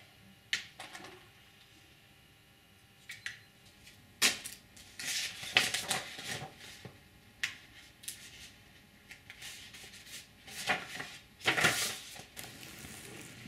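Hands handling small glass vaccine vials, plastic syringes and paper on a countertop: scattered clinks, clicks and short rustles. The sounds are sparse at first, busiest from about four seconds in, with another cluster near the end.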